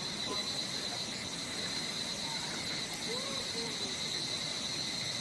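Insects droning steadily in a single high, shrill tone.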